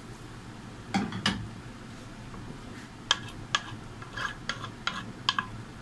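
A wooden spoon stirring rice in hot water in a cooking pot, knocking and scraping against the pot several times in short sharp clicks.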